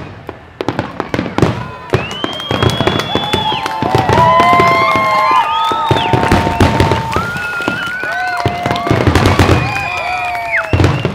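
Fireworks going off in quick succession, with many bangs and crackling bursts. From about two seconds in, several whistles sound at once, each held at a steady pitch and some bending up or down, until just before the end.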